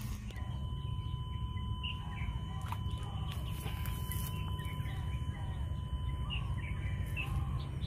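Small birds chirping in short scattered calls over a steady low outdoor rumble, with a faint steady high tone that fades out after about six seconds.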